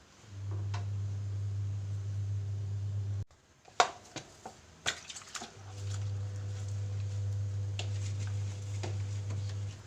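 A low, steady electrical hum, like a small motor running, breaks off suddenly about three seconds in. A few sharp clicks and light knocks follow, like objects being handled, and then the hum starts again and runs on.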